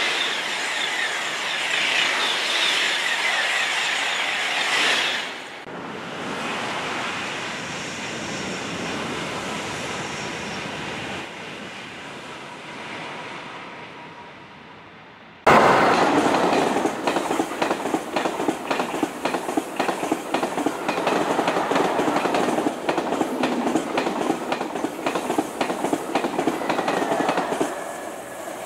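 TGV Duplex high-speed trains passing. First comes a loud close pass with a steady rushing hiss that cuts off about five seconds in. Next a softer rush fades away as a train runs into the distance. Then, starting suddenly about halfway through, a TGV runs through a station on conventional track, its wheels clicking rapidly over the rail joints.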